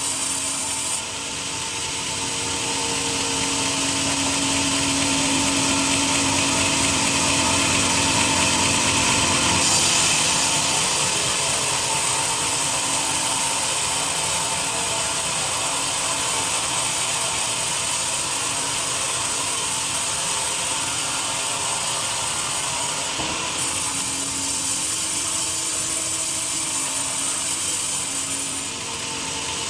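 Sawmill saw cutting through a teak log: a continuous, steady machine sound with a whine, slightly louder about ten seconds in.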